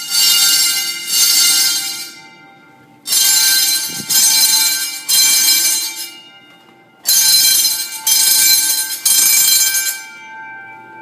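Hotel fire alarm bells ringing loudly in the three-ring evacuation pattern: three rings about a second apart, a short pause, then three more, repeating every four seconds. The alarm was set off by accident and is a false alarm.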